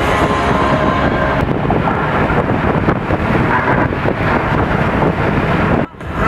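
Wind rush and road noise in an open-top convertible at highway speed, with wind buffeting the microphone. Just before the end the sound drops out abruptly for a moment.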